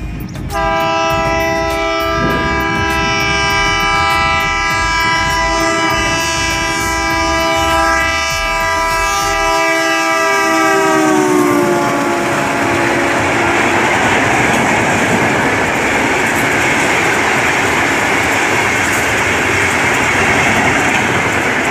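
The horn of an ALCO diesel locomotive sounds one long, loud blast as the passenger train approaches at speed. Around the middle it drops in pitch as the locomotive passes. The horn fades into the steady rush and wheel clatter of the AC coaches passing close by.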